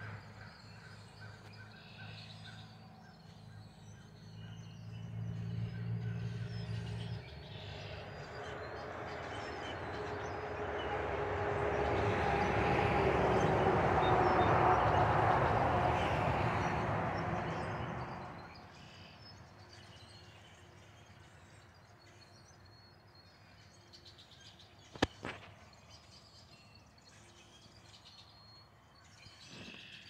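Songbirds chirping faintly throughout while a vehicle goes by. A low engine hum gives way to a swell of road noise with a faint steady whine, loudest about halfway through, then fading away. A single sharp click comes near the end.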